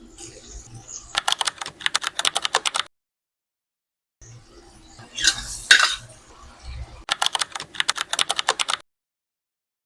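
Rapid, evenly spaced clicking like keyboard typing, about ten clicks a second, in two runs of nearly two seconds each. Between them comes a louder, brief noisy rush, and the sound drops to dead silence in places.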